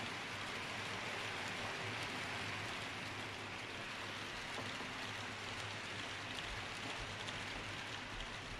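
HO-scale model freight train rolling past: a steady rushing hiss of its wheels on the rails, with faint scattered ticks and a steady low hum underneath.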